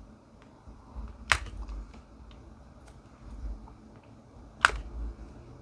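Small plastic clicks and taps from diamond painting work: a drill pen and resin drills on a plastic tray and canvas. Two sharp clicks, one about a second in and one near the end, with faint ticks between.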